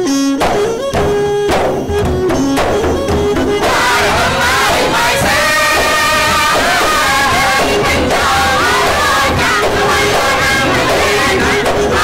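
Khmer yike ensemble music: large yike frame drums struck in rhythm under a bowed two-string fiddle melody, then from about four seconds in a chorus of voices joins in singing over the drums.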